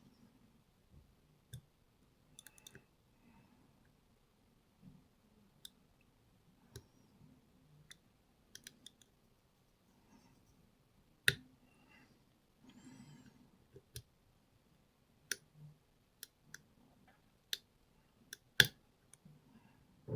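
Lock pick working inside a pin-tumbler challenge lock under light tension: small irregular metallic clicks as the pins are lifted and set, with a few sharper, louder clicks.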